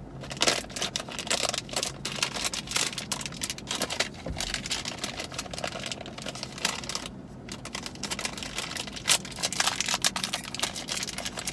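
Plastic snack wrapper crinkling and rustling as hands twist and tug at it, trying to tear it open; irregular crackles throughout.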